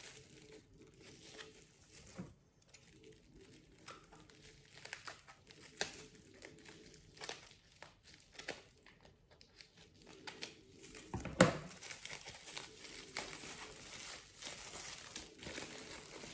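Bubble wrap and plastic packaging crinkling and crackling in short, irregular bursts as it is unwrapped by hand, with one sharper knock about eleven seconds in.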